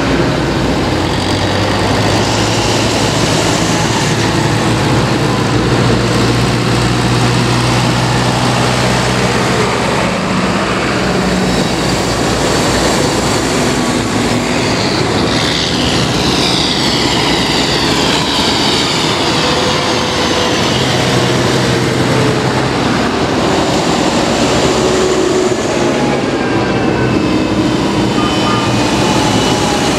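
Modern tractors' diesel engines and tyres as a line of tractors drives past close by, one after another. It makes a steady loud drone whose engine note changes as each tractor goes by, with a high whine sweeping down about halfway through.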